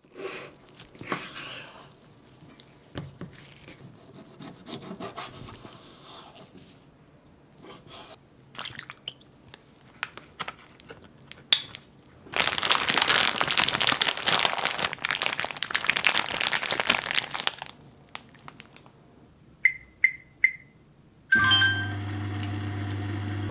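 Knife slicing chicken gizzards on a wooden cutting board, in small cuts and taps. Then a plastic zip-top bag of gizzards and Worcestershire sauce is loudly crinkled and squished as it is massaged. Near the end come three short beeps from the BONIQ sous-vide cooker's control panel, and the cooker starts running with a steady hum.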